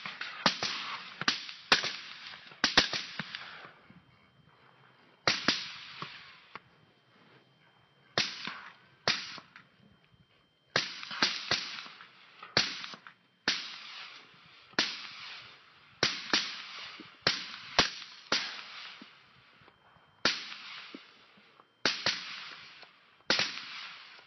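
Rapid, irregular rifle fire at hogs: many sharp shots, often several in quick succession, each followed by a short echo, with a couple of pauses of a second or two.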